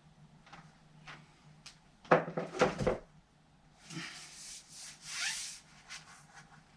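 Carbon fishing-pole sections being pulled apart by hand. There are small clicks, then a cluster of loud knocks about two seconds in, then hissing scrapes of carbon sliding on carbon, one rising in pitch, as a tight-fitting section works free.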